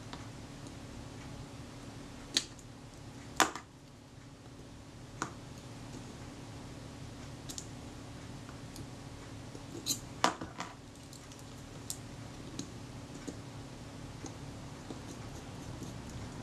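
Scattered small, sharp metallic clicks and taps of a small screwdriver and tiny screws against a Kodak Retina IIIS camera body as the screws are driven in, over a faint steady hum.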